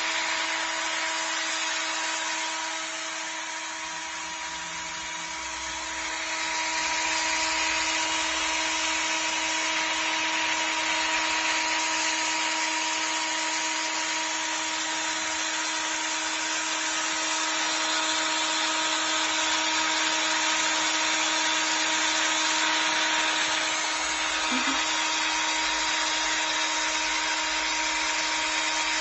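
Cordless drill running freely with nothing in the chuck: a continuous, steady whine with an unchanging pitch, a little softer a few seconds in.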